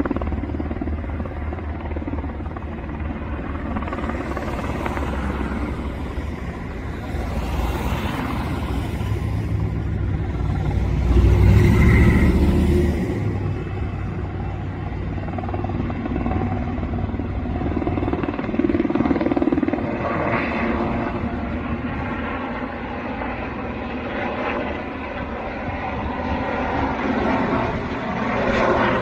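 Firefighting helicopter's rotor and engine running steadily as it works over the fire. The sound grows loudest about eleven to thirteen seconds in.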